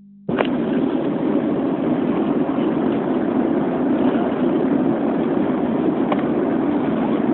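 Steady road and engine noise inside a moving car's cabin, a dense even rumble that starts abruptly just after the beginning and holds level, with a faint tick or two.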